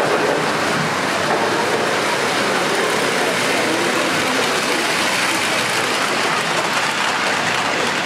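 Model IRT Redbird subway train running past on its elevated track: a steady rushing noise of wheels and motor.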